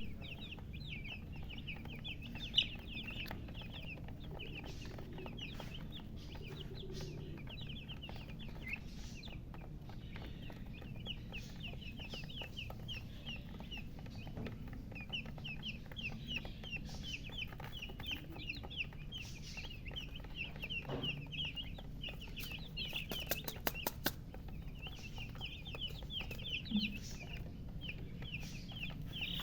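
Newly hatched chicks peeping loudly and without pause: many short, high chirps, each falling in pitch, overlapping at several a second.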